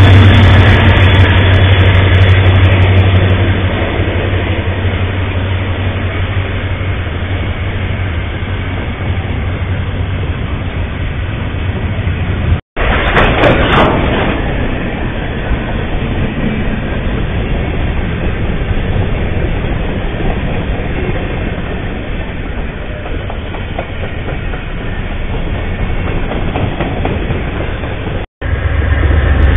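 Freight train passing close by: a heavy low rumble in the first few seconds, then the steady clatter and roar of rail cars rolling over the track. The sound cuts out twice, briefly, where one trail-camera clip ends and the next begins.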